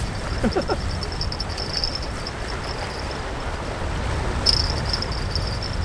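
Wind rumbling on the microphone over choppy sea at a concrete sea wall, with a thin, steady high-pitched buzz that stops about two seconds in and returns about four and a half seconds in.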